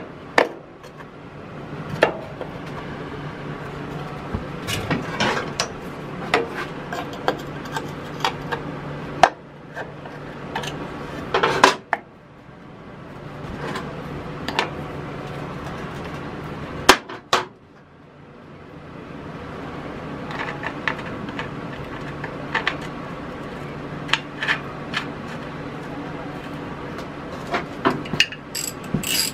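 Scattered metal clinks, taps and clatter of hand tools and steel brake parts as a brake shoe and its pivot bolt are fitted back onto a garden tractor's brake backing plate, with an adjustable wrench picked up and set on the nut. A steady low hum runs underneath.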